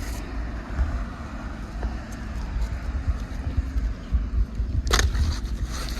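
Wind rumbling on the microphone, with a single short, sharp click about five seconds in.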